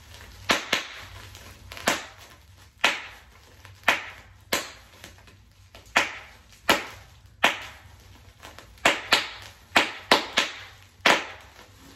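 Plastic bubble wrap squeezed by hand, its bubbles popping one after another: about fifteen sharp pops at uneven intervals, coming faster near the end.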